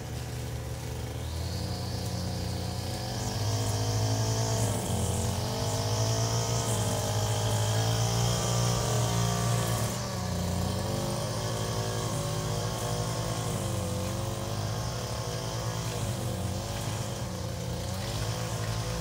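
Background music with a steady low bass that changes note every second or two under a wavering melodic line.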